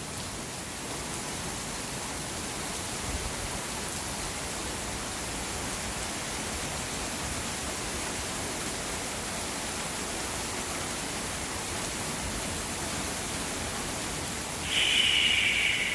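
Steady rain from a thunderstorm falling outside, an even hiss. Near the end a brief high-pitched tone, about a second long, rises above the rain.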